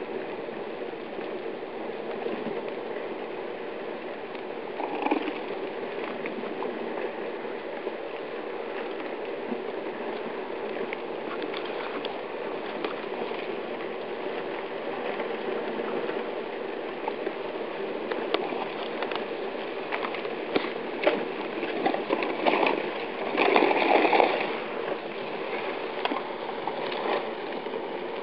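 River ice beginning to move at break-up: drifting ice crackling and grinding, a steady rushing hiss dotted with sharp cracks. The cracking grows denser in the second half, with a loud burst of cracks about three quarters of the way through.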